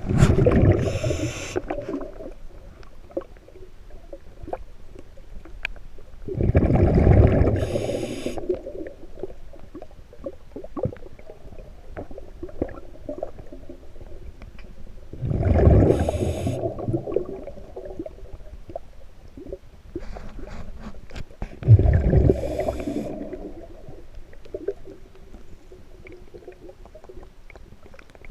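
Scuba diver breathing underwater through a regulator: four breaths about six to seven seconds apart, each a loud rumble of exhaled bubbles with a hiss, between quieter gurgling.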